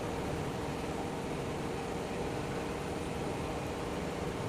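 Steady background hum and hiss of room tone, with no distinct events.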